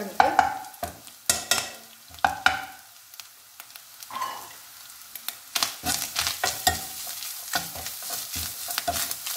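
Metal spoon scraping and knocking against a nonstick kadai as grated coconut is stirred into a frying onion and chilli mix, with frying sizzle underneath. The stirring clatter thins out briefly in the middle, then comes back quick and busy.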